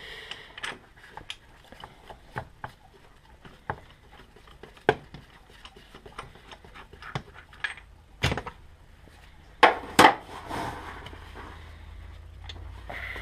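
A socket wrench with a 27 mm socket clinking and knocking on the gearbox as the reversing light switch is undone: scattered light clicks, with a few louder knocks about eight to ten seconds in.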